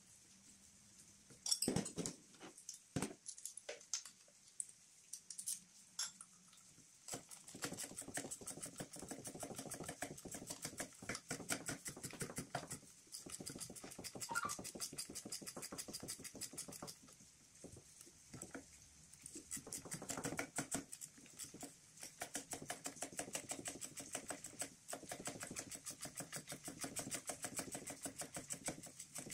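Ratchet wrench clicking in quick, even runs with short pauses as bolts are turned in, after a few sharp knocks from parts being handled.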